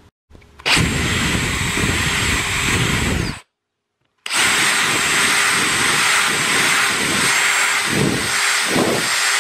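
Electric drill boring into a wooden target block to cut out broadhead blades embedded in it. It runs steadily with a high whine for about three seconds, stops, then starts again and runs to the end, the bit biting harder a couple of times near the end.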